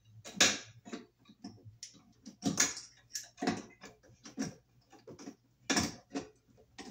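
Pliers and a bare copper ground wire clicking and scraping against a receptacle's ground screw and metal box as the wire is bent around the screw. The clicks come irregularly, the loudest about half a second in, near the middle and near the end.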